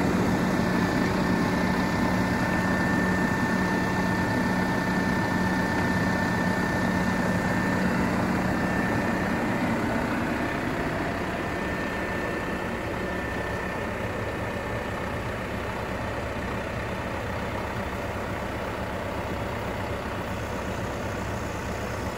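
SAME Dorado 90.4 tractor's diesel engine running steadily while it drives the Kastle forestry crane's hydraulics, with a steady whine over the engine note. The sound eases off a little about halfway through.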